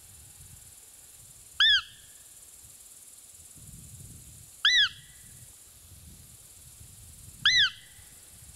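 Roe deer mouth call (a Butov-type call) blown three times, about three seconds apart: short squeaky peeps that rise and fall in pitch. They imitate a roe doe's squeak to lure a roe buck during the rut.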